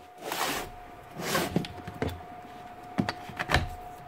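Handling noises from a plastic-cased site transformer and its plugs: rubbing and shuffling at first, then a few sharp knocks and clicks about three seconds in.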